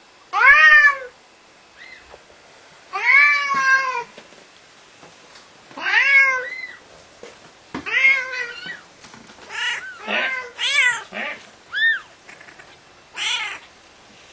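Adult Bengal cat meowing over and over: long, drawn-out meows every two or three seconds, then shorter, quicker ones from about nine seconds in. The cat is complaining and agitated, as if put out by the newborn kittens.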